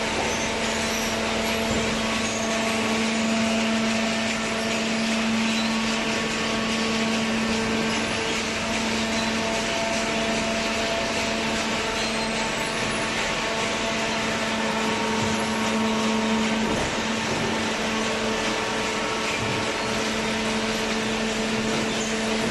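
Large hydraulic cardboard baler running, a steady machine hum from its electric motor and hydraulic pump over a wash of mechanical noise.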